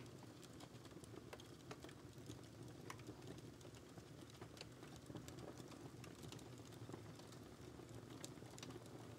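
Near silence: quiet room tone with a low hum and faint, irregular light clicks and ticks.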